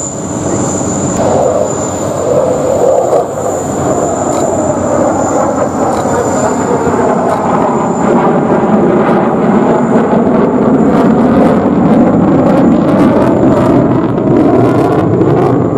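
B-1B Lancer bomber's four turbofan jet engines during a low flypast: a loud, continuous jet roar that builds slightly. A thin, steady high whine runs through the first half, and crackling comes into the roar in the second half.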